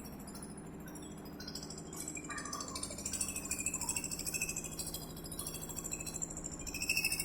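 One-bag concrete mixer running: a steady motor hum under a continual clinking, metallic rattle, which grows louder about three seconds in and again near the end.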